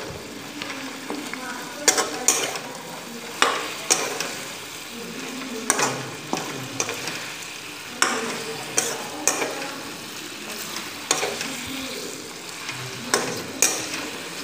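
Mutton and potato pieces frying in oil in a kadai, with a steady sizzle, while a metal spoon stirs them and scrapes and clinks against the pan in irregular, repeated strokes.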